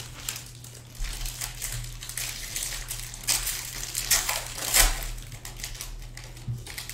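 Foil trading-card pack wrapper being torn and crinkled open by hand: a run of crackling rustles with several sharper tearing bursts in the middle. A faint steady low hum sits underneath.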